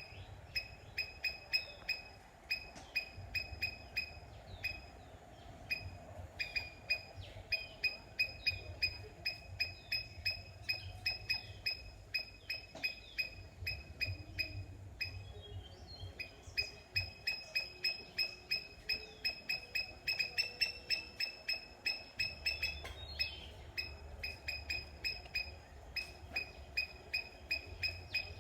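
An animal calling in a long series of short, sharp, high-pitched chirps, about three to four a second, with brief breaks about halfway through and again later.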